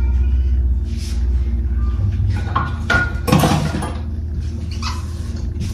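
KitchenAid stand mixer motor running with a steady low hum while it mixes cookie dough in a stainless steel bowl. A spatula scrapes and knocks against the bowl several times, loudest about three seconds in, pushing dough off the sides that the beater misses.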